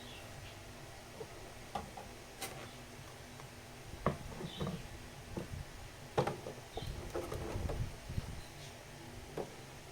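Irregular small clicks, taps and rustles of plastic packaging and figure parts being handled during an unboxing, busiest around the middle. Faint short high chirps of a bird come through a few times.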